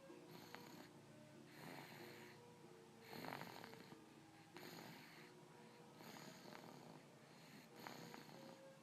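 Quiet snoring from someone asleep, one snore about every second and a half, the loudest about a third of the way in.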